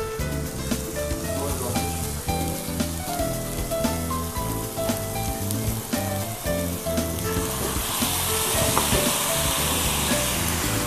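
Background music with a steady beat. About seven or eight seconds in, a steak and its sauce start sizzling loudly on a hot iron serving plate, and the hiss continues to the end.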